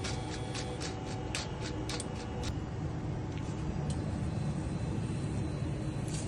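Medu vadas deep-frying in hot oil: sizzling with sharp, irregular crackles through the first couple of seconds that then thin out, over a steady low hum.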